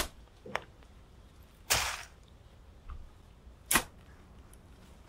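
Shovel digging a grave in soil: a few sharp strikes of the blade and short scraping bursts of dirt, about two seconds apart.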